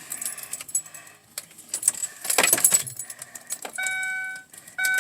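Car keys jangling and clicking as a key is fitted into the ignition, then two steady electronic beeps from the car's warning chime near the end.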